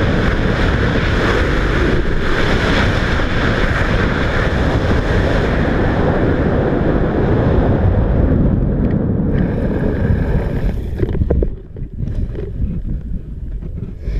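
Wind rushing over a helmet camera's microphone during a parachute descent under canopy. The wind noise drops off sharply about eleven seconds in, with a few knocks as the jumper touches down on the runway.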